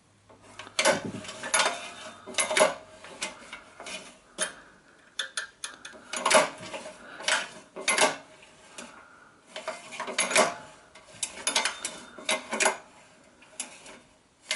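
Irregular metallic clicks and clinks from a Honda GX small engine's valve gear as the rocker arms are wiggled by hand and the engine is turned slowly on its pull cord, checking for top dead centre with both rockers loose.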